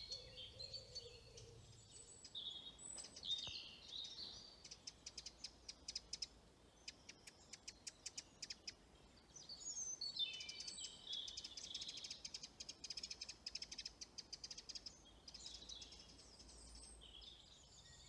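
Woodland songbirds singing, faint: short high phrases, a run of quick ticking notes about a third of the way in, and a long rapid trill lasting several seconds after the middle.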